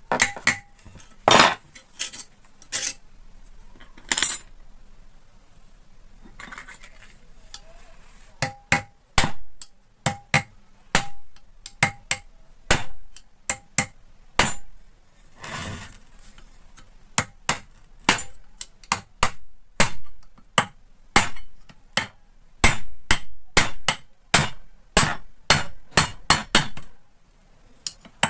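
Hammer knocking on the metal end cover of an air-cooler fan motor to loosen it from the motor body. The knocks are sharp and metallic, some ringing briefly. They come a few seconds apart at first, then about eight seconds in they come close together, a couple a second by the end.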